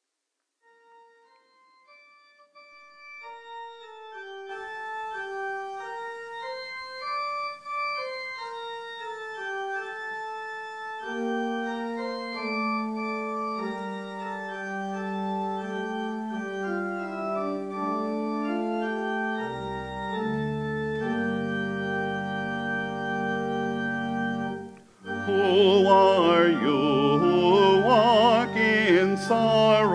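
Church organ playing a hymn introduction in sustained chords. It starts softly with a single melody line and builds as lower parts and deep bass notes come in. Near the end, singing begins with the organ.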